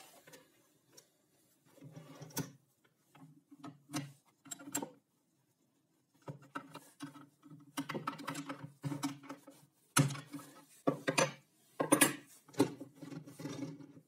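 Metal hardware and a spanner being worked on a plywood table: a bolt on the roller-bearing blade guide bracket is tightened, with irregular clinks, rattles and knocks and several sharp clicks, the loudest in the second half.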